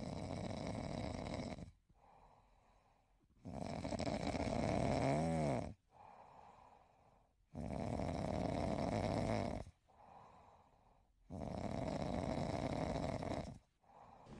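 A sleeping man snoring: four long snores about every four seconds, with silence between breaths; the second snore has a brief pitched tone in its middle.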